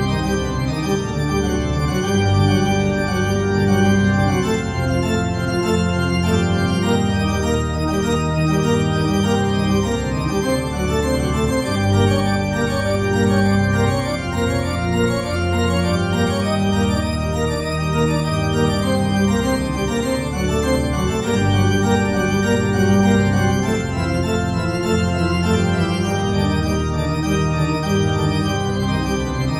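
Organ music playing slow, held chords that change every second or two over a sustained bass.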